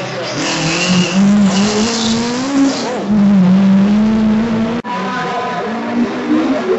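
Historic rally car engine at high revs as the car slides through an asphalt corner, tyres squealing, then holding a steady high note. After an abrupt cut, another engine revs up and down.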